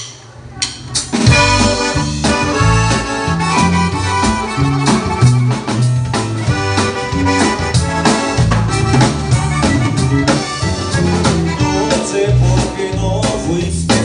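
Live band playing an instrumental passage led by an accordion, with guitar and drums, starting about a second in.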